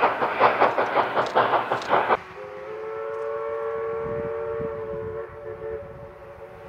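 East Broad Top narrow-gauge 2-8-2 steam locomotive No. 16 working hard with rapid exhaust chuffs, which cut off abruptly about two seconds in. Then its steam whistle sounds one long blast of about four seconds, several notes together.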